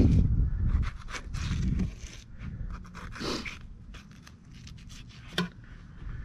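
Fillet knife slicing a trout fillet away from its skin: short scrapes and ticks of the blade against the flesh and the cleaning table, with a longer scrape about three seconds in and a sharp tick near the end. A low rumble fills the first couple of seconds.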